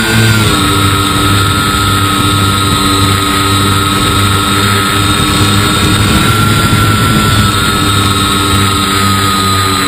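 Motor and propeller of a foam-board RC cargo plane in flight, heard from a camera in its cockpit: a steady whine that drops slightly in pitch about half a second in and then holds, with rushing air.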